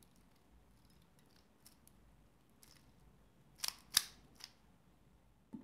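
Plastic 3x3x3 Rubik's Cube layers being turned by hand: a few faint clicks, then a quick run of sharp clacks about three and a half to four and a half seconds in, and a duller knock near the end.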